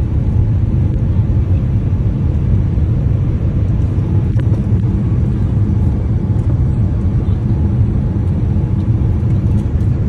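Steady low rumble of an airliner in flight, heard inside the cabin: jet engine and airflow noise.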